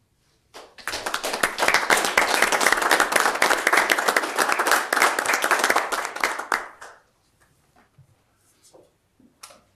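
A small audience applauding, starting just under a second in and dying away about seven seconds in, followed by a few faint knocks and a single click near the end.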